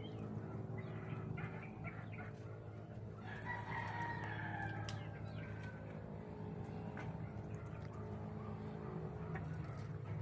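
A native rooster crowing once: a single drawn-out call about three seconds in that falls slightly in pitch, over a steady low hum.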